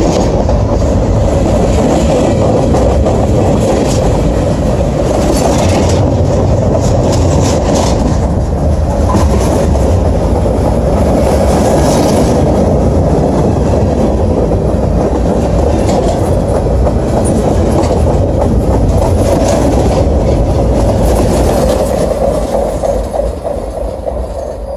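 Freight train cars rolling past close by: a steady loud rumble and clatter of steel wheels on the rails, easing off near the end as the last car goes by.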